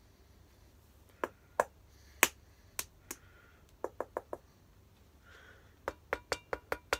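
Knuckles knocking on a steel M72 combat helmet worn on the head. There are several spaced knocks, then a quick run of four, then a faster run of about six near the end, where the steel gives a brief metallic ring.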